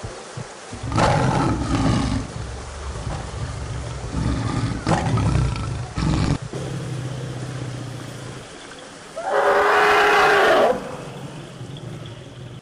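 Big-cat roars and growls in several rough bursts, a tiger's by the picture. Near the end comes a pitched trumpet call lasting about a second and a half, typical of an elephant.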